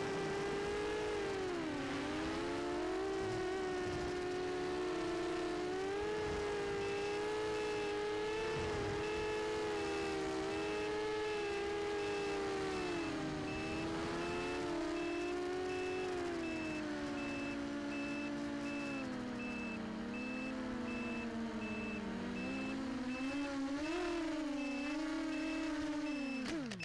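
Brushless motors and propellers of a small FPV quadcopter (Sunnysky 2204 2300 kV motors, 6-inch props) whining, the pitch rising and falling as the throttle changes through the flight. From about a quarter of the way in a high electronic beep repeats rapidly over it, and near the end the motors spin down with a sharply falling pitch.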